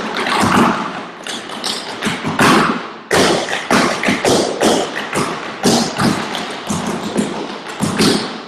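Tap shoes striking the floor in quick, uneven runs of sharp taps and heavier thuds, dying away near the end, heard over a video call.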